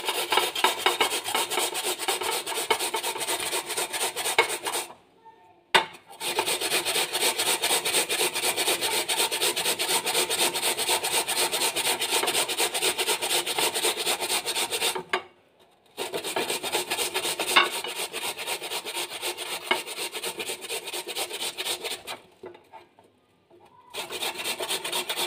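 Potatoes being grated on the coarse side of a metal box grater: rapid, rhythmic rasping strokes, pausing briefly three times.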